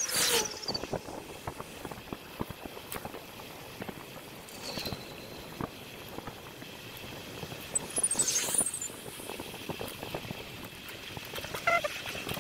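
Bicycle riding noise picked up by a handlebar-mounted action cam at fast-forward speed: a dense run of small rattling clicks from the bike over steady wind and tyre noise. There are brief louder whooshes at the start, about five seconds in and about eight seconds in.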